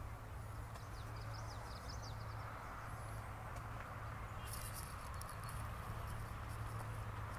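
Footsteps on a sandy dirt path, crunching more crisply for a couple of seconds past the middle, over a steady low background hum. There are a few faint bird chirps about a second in.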